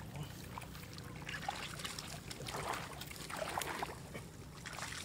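Irregular splashing and sloshing in shallow muddy water as stranded fish thrash and are grabbed by hand, with short wet splashes now and then.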